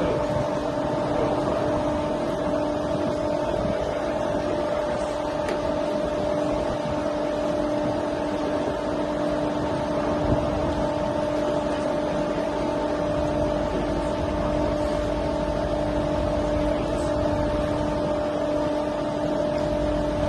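A steady machine hum holding one constant pitch over an even rushing noise, with no change in speed.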